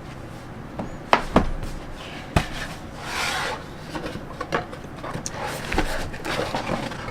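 Handling noise from a repair toolkit being unpacked: a few sharp clicks and knocks, then a brief scraping rub, with small clicks in between.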